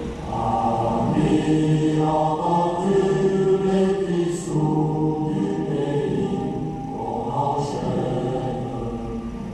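Choral music: several voices singing long held notes together, fading away near the end.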